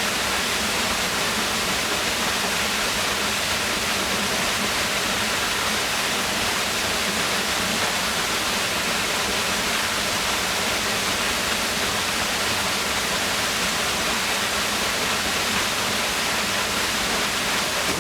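Waterfall roaring steadily, heard up close at its base: an even rush of falling water with no breaks.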